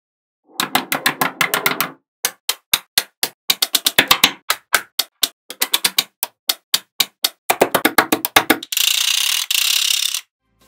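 Small magnetic balls clicking and clattering together in quick, irregular runs of sharp clicks, then a steady hiss for about a second and a half near the end.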